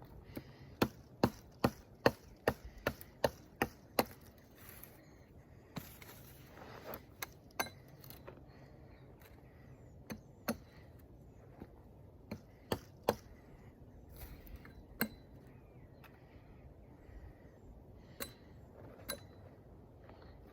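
A hand tool striking a hard surface: a quick run of sharp blows about three a second for a few seconds, then single blows at irregular intervals.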